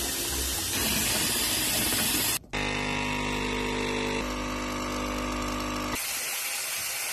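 A kitchen mixer tap running into a stainless steel sink with a steady hiss. Just over two seconds in, an espresso machine's pump takes over, humming with a steady, many-toned drone as the coffee pours. Near the end a bathroom basin tap runs, hissing again.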